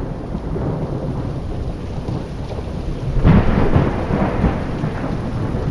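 Rain with a rumble of thunder, swelling louder about three seconds in.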